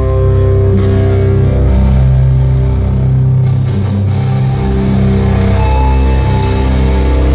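Live rock band playing loud, sustained distorted electric guitar chords over heavy bass, heard through a fan's recording in a concert hall.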